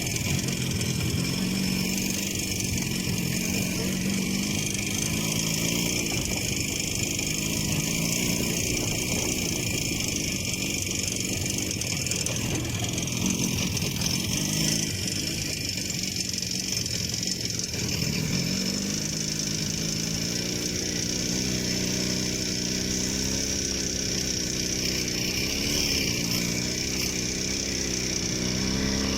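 IZh Jupiter 5 motorcycle's two-stroke twin engine running while riding, its pitch rising and falling with the throttle.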